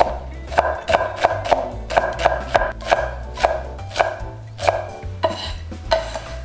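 Steel chef's knife dicing an onion on a wooden cutting board: sharp knocks of the blade on the board, about three a second, thinning to a few scattered strikes in the second half.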